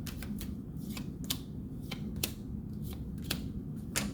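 Tarot cards being shuffled and flicked, a string of irregular crisp card snaps and slaps.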